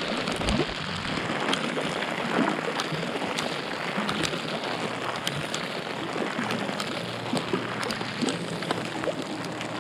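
Steady rain from a thunderstorm, with many sharp drop impacts over an even hiss.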